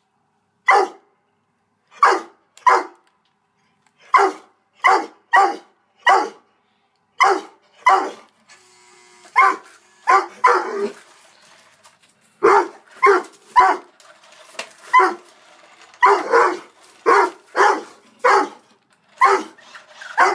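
Doberman barking over and over at a white remote-control toy car it is afraid of: short single barks, often in quick pairs or threes, with brief pauses between them.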